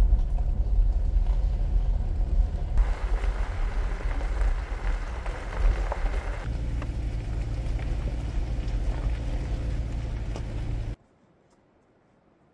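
A vehicle driving on a gravel forest road: a steady low rumble of engine and tyres on gravel, whose noise changes character twice. It cuts off abruptly about eleven seconds in, leaving near quiet.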